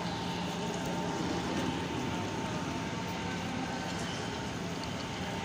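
Steady ambience of a large railway station hall: a continuous low din with a steady hum from trains standing at the platforms.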